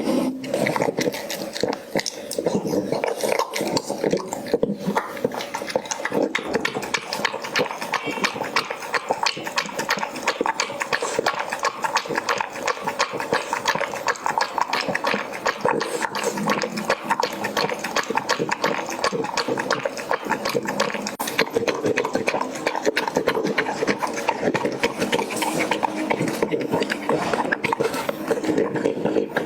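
Dog eating its breakfast: a fast, unbroken run of chewing, crunching and mouth clicks.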